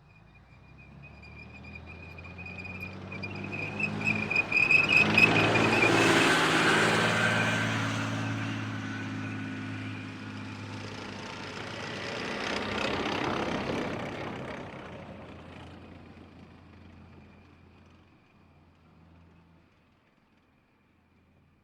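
Tanks passing by one after another, their engines and tracks growing louder and then fading. The first peaks about six seconds in with a thin high whine, and a second tank peaks around thirteen seconds before dying away.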